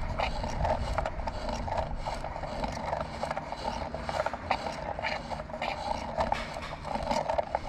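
Small wooden karakuri mechanism being worked, its wooden parts rubbing and scraping with many small clicks as it moves a cutout rabbit over cutout waves.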